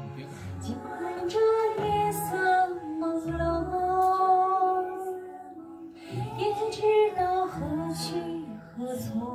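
A woman singing a Chinese-language karaoke song through a microphone over the song's backing track, with a short break in the vocal about five seconds in.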